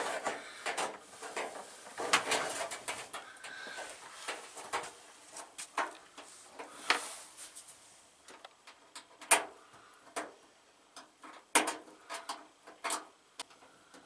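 Irregular small clicks and light knocks of screws and a screwdriver being handled against the sheet-metal casings of a washer and dryer as their panels are screwed back on.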